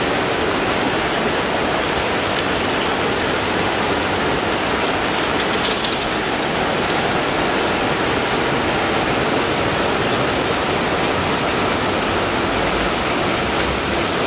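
Heavy tropical downpour: dense, steady rain hiss that does not let up.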